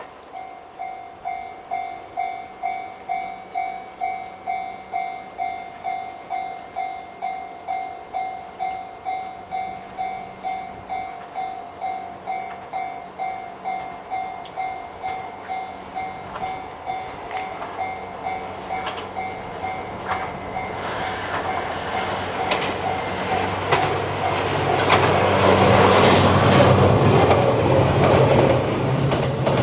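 Japanese level-crossing warning bell ringing about twice a second. Then the Twilight Express Mizukaze diesel train approaches and passes over the crossing: its engine drone and the click-clack of wheels over rail joints build up and grow loud near the end, drowning out the bell.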